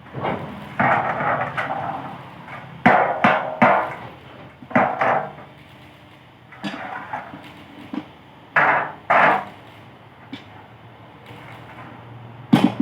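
Hammer blows on the metal of a truck's steering gearbox being taken apart: about a dozen irregular strikes, some in quick pairs and triples, each ringing briefly.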